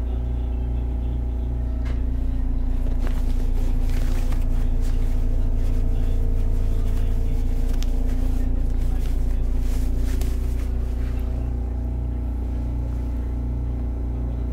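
Hakodate City Transportation Bureau 3000-type tram running along street track, heard from inside the car: a steady low hum with tones from the running gear. From about two seconds in until about eleven seconds in it grows louder, with rattling and clicking from the wheels and track, then settles back to a steady run.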